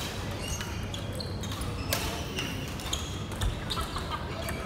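Table tennis ball clicking off paddles and table in a serve and rally, with scattered ball clicks from neighbouring tables.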